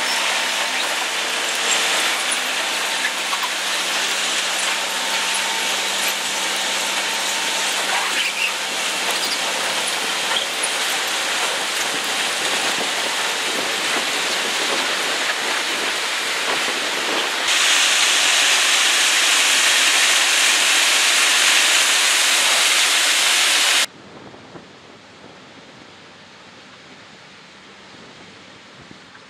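Loram shoulder ballast cleaner at work: a loud, steady rush and rattle of ballast stones being dug out and thrown, over the hum of the machine, getting louder and harsher about two-thirds through. Near the end it cuts off suddenly to a much quieter, duller rushing noise.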